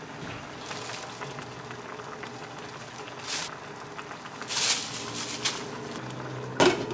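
Ramyeon broth simmering in a frying pan on a gas stove. There are brief rustling bursts as chopped green onions are dropped in, then two sharp clanks near the end as the glass lid is set back on the pan.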